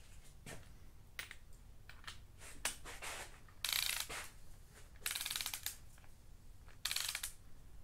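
Long ratchet-head wrench tightening a cylinder head bolt on a VR6 engine: three short bursts of rapid ratchet clicking on the back-strokes, with separate single clicks and taps between them.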